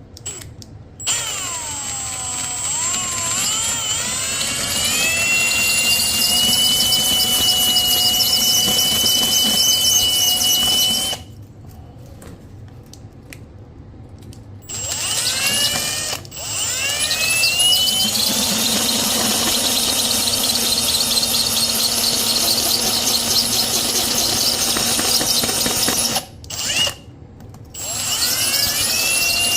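Electric drill boring a hole into a ceramic toilet bowl, run in several stretches with pauses between them, the longest about ten seconds. Each run starts with a rising whine as the drill spins up, then settles into a steady high-pitched whine over a grinding noise.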